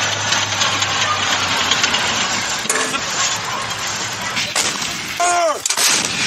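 Battlefield background noise with gunfire and artillery reports: a low engine hum dies away in the first second or two, and sharp bangs come about four and a half seconds in and again near the end, with a short falling tone between them.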